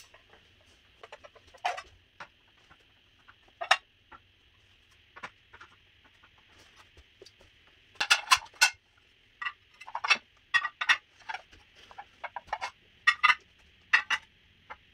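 White square ceramic plates clinking and knocking as they are set down on gold charger plates and stacked on one another, a string of short sharp clinks with slight ringing that come in quick clusters about eight and ten seconds in and again near the end.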